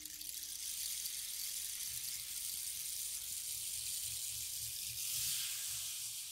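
Steady high hiss with no pitched notes, swelling slightly about five seconds in and beginning to fade near the end.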